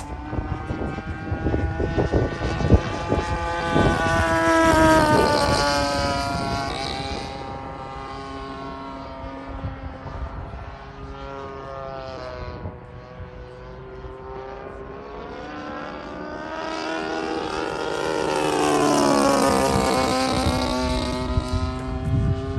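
Propeller and single-cylinder two-stroke gas engine (DLE-35RA) of an RC P-47 Thunderbolt model in flight, making two loud passes. Each pass rises in loudness and then drops in pitch as the plane goes by. The engine is fainter between the passes.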